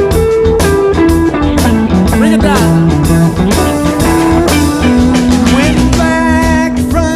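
Rock music with guitar over a steady drum beat, the melody sliding and bending in pitch.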